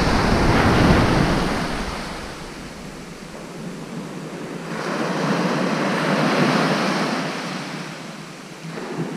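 Surf breaking and washing up a sandy beach, swelling and fading twice in slow surges.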